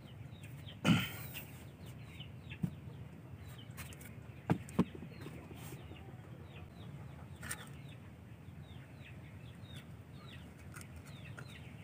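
Birds chirping over and over in short falling peeps, in a chicken-like call. About a second in there is a brief loud scrape, and a few sharp knocks follow around two and a half and four and a half seconds in as the plastic tub and its bark are handled.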